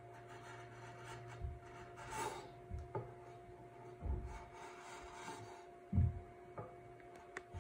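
A hand file scraping the edge of a wooden stool seat in short, irregular strokes while it is faceted, with a couple of dull knocks about four and six seconds in. A faint steady hum sits underneath.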